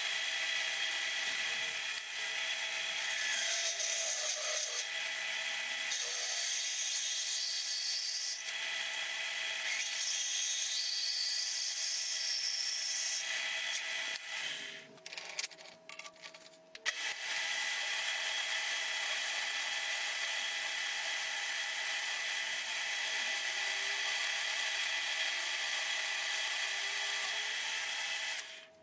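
Electric power tool running steadily with a constant whine, its sound shifting in strength every few seconds as it works. It stops for a couple of seconds about halfway through and again near the end.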